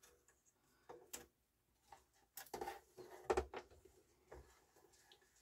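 Faint scattered clicks and light taps of a small cord being handled and pressed into place against the plastic drawer frame and metal chassis of an opened CD changer.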